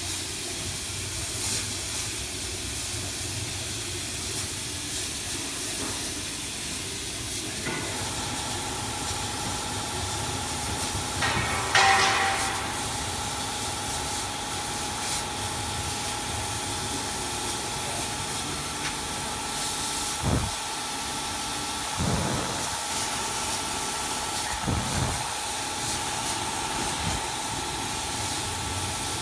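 CO2 laser cutting machine at work cutting fabric: a steady hiss of moving air, joined about a quarter of the way in by a steady whine. Near the middle comes a brief louder rush, and a few low thumps follow later.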